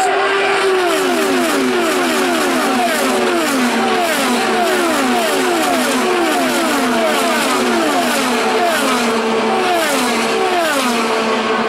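A pack of IndyCars, twin-turbocharged V6 race cars, streaming past at speed one after another, each engine's whine dropping in pitch as it goes by.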